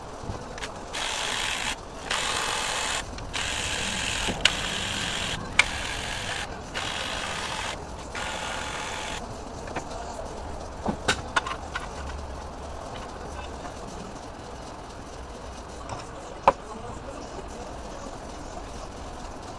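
Pneumatic air ratchet running in about half a dozen short bursts, loosening fasteners on a diesel engine's cylinder head, followed by a few sharp metal clicks of tools and parts.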